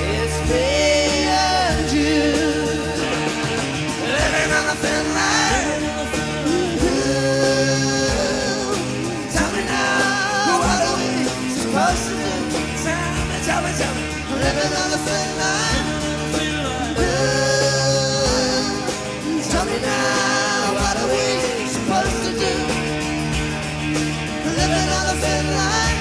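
Live rock band playing a song: electric guitars, bass and drums with a bending lead melody line on top, from a cassette-tape concert recording.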